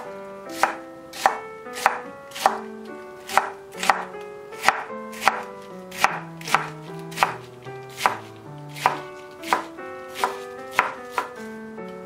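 Ceramic knife chopping napa cabbage stalks on a wooden cutting board. It makes a steady series of crisp knocks, about one every half to two-thirds of a second, as each stroke cuts through the stalk and strikes the board.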